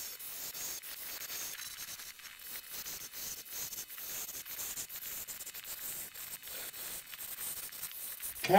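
Wood lathe turning a pink ivory spindle while a chisel shaves it down, giving an uneven hissing scrape. Right at the end a man's voice starts singing, louder than the cutting.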